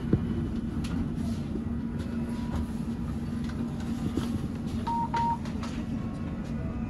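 Steady low drone inside a city bus rolling slowly, with a held hum throughout. About five seconds in there are two short electronic beeps.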